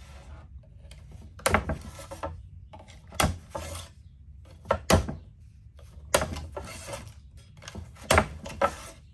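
Civivi Badlands Vagabond folding knife cutting through plastic zip ties: about five sharp snaps a second or two apart, with handling and rubbing between them.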